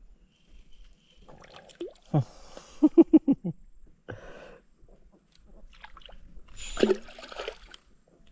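Water splashing and dripping as a small fish is reeled up out of the river on a spinning rod. In the middle comes a quick run of about six short low pulses.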